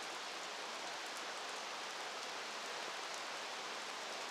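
Steady rain falling on a wet asphalt driveway, an even hiss with a few faint drip ticks.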